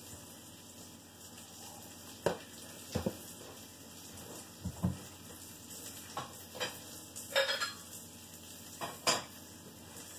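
Pots, pans and metal utensils knocking and clinking, about eight separate strikes spread irregularly, one of them a short ringing clink, over a faint steady sizzle of meat frying in a pan.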